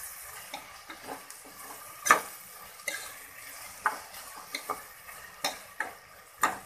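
A metal spatula scraping and clinking against an aluminium pressure cooker in irregular strokes, stirring chopped tomatoes and onions that are frying in oil and butter, over a faint steady sizzle. The strongest scrapes come about two seconds in and near the end.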